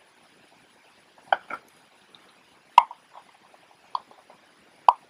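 Small hand tools clicking and tapping against the metal and plastic parts of the opened Canon AF35M II camera body: about five short, sharp clicks at uneven intervals, the loudest a little before the middle.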